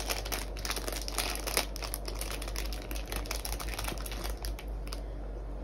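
Crinkling and crackling of a blind-box figurine's wrapper being torn open and unwrapped by hand, a dense run of crackles that dies down about five seconds in.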